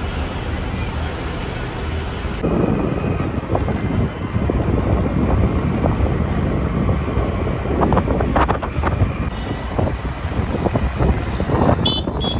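Wind buffeting the microphone over road noise from a moving vehicle, uneven and gusty, with a steadier hum in the first couple of seconds. A short high tone sounds near the end.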